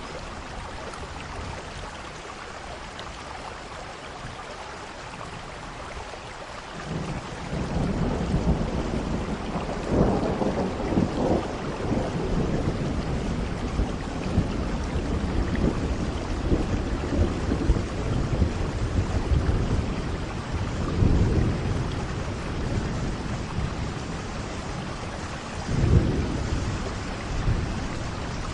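Steady rain with rolling thunder. The thunder rumble comes in about a quarter of the way through and swells several times, loudest near the end.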